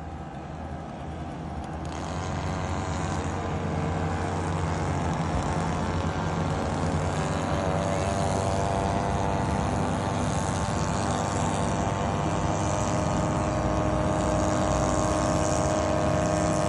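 An engine running steadily, growing louder over the first few seconds and then holding level.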